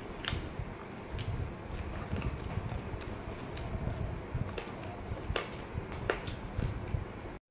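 Mouth sounds of a person eating: irregular soft clicks and smacks of chewing over a steady low background noise. The sound cuts out for a moment near the end.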